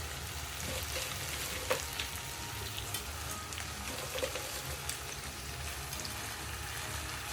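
Crabs frying in a pan of spiced onion, garlic and tomato masala: a steady sizzle with a few scattered light clicks.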